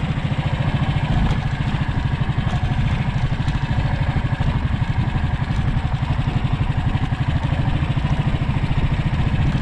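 Small motorcycle engine running steadily at a low, even pace with a fast low pulse, heard from on board.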